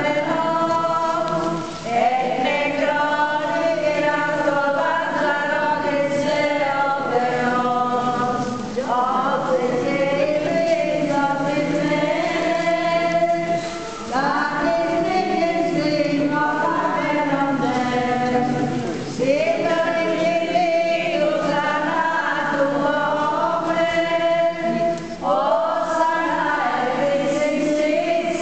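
Church choir singing a Byzantine-rite liturgical hymn without accompaniment, in phrases of about five seconds with short breaks between them.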